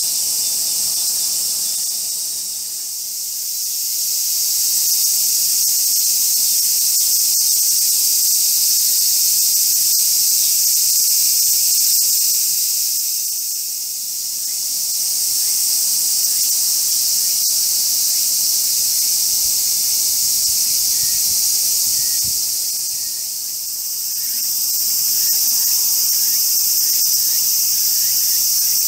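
Dense, steady, high-pitched chorus of summer insects, dipping briefly in level three times.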